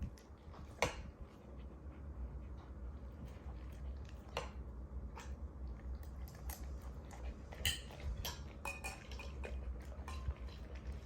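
A chocolate Labrador retriever eating from a bowl: scattered clinks and clicks of the bowl as he eats, over a low steady hum.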